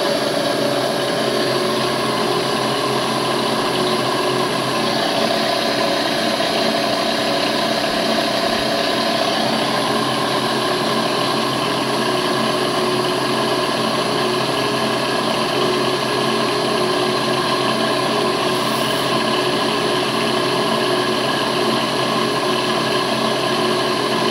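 Milling machine spindle running steadily with a small drill bit in its drill chuck boring a hole into a tiny steel part, fed down slowly on the fine feed; an even, unchanging machine hum.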